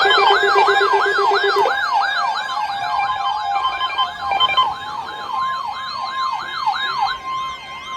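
Honeywell electronic alarm siren yelping, sweeping up and down about twice a second, set off with a weather-radio alert. A rapid low beeping runs under it for the first second and a half, and near the end the yelp gives way to a steady high tone.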